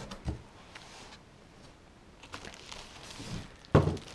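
Cardboard box and packing being handled: a couple of soft knocks at the start, light rustling of plastic wrapping, and a louder short thump near the end.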